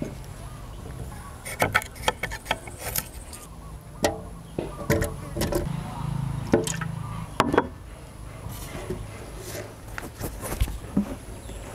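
Knife tapping and knocking on a wooden cutting board while aloe vera leaves are cut, then the clinks and knocks of aloe gel and egg going into a blender jar; a steady low hum runs underneath.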